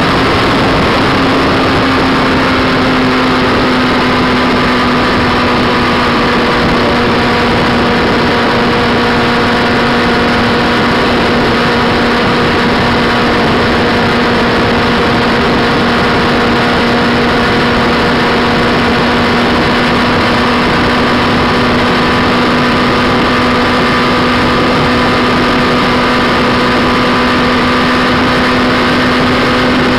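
Motorcycle engine droning steadily at motorway cruising speed, its pitch rising slightly in the first few seconds and then holding, under constant rushing wind and road noise.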